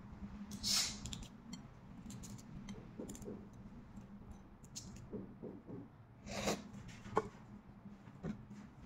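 Balut eggshells being handled and picked at with fingernails: light clicks and taps, with two short, louder crackles of shell, the first about a second in and the second past the middle.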